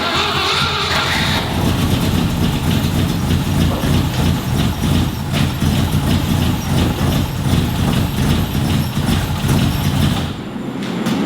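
Range Rover's Rover 3.5-litre V8 running just after firing up on freshly rebuilt carburettors, a steady low rumble. It drops off somewhat about ten seconds in.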